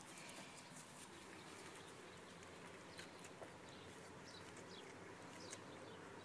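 Quiet scene of Cavalier King Charles puppies playing on a tile floor: faint scattered clicks of their claws and paws on the tiles, with a few faint short high chirps.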